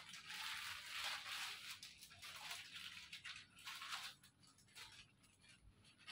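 Plastic bag crinkling and rustling as it is handled, busiest in the first four seconds and thinning to a few faint rustles after.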